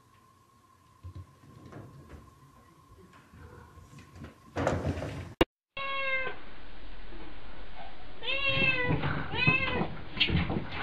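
A cat meowing repeatedly at a closed door: three or four drawn-out calls about a second apart in the second half. Before them come faint taps and a short loud noise.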